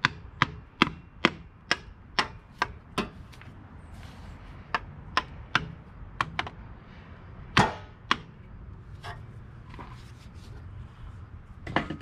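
A run of sharp knocks, about two a second for the first three seconds, then slower and irregular, with a louder strike about halfway through and another near the end. These are blows struck while working a tight, stuck part on the tractor.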